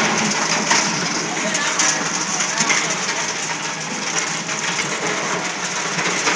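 Single-shaft shredder running and chopping cable and hard plastics: a dense, steady crackling clatter of many small irregular snaps.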